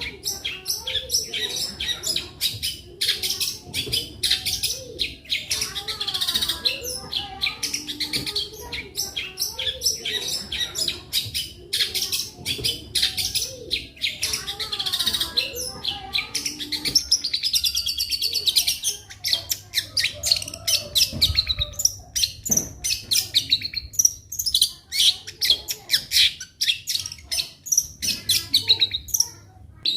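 Long-tailed shrike (cendet) singing continuously: a fast, dense run of high chirps and trills, mixed with lower sliding notes.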